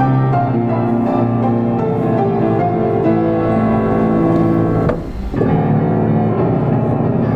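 Diapason grand piano being played: held bass notes and chords under a moving melody, with a brief break in the playing about five seconds in.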